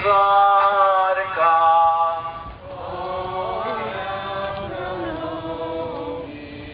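Voices singing a slow hymn in long held notes, louder for the first two seconds and softer after.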